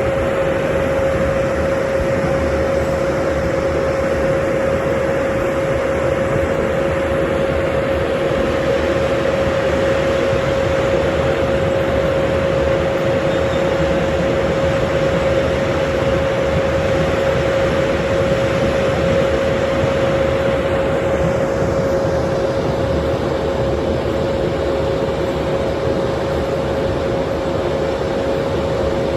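Holmer Terra Dos T4-40 sugar beet harvester working: a loud, steady machine noise with a constant whine held at one pitch.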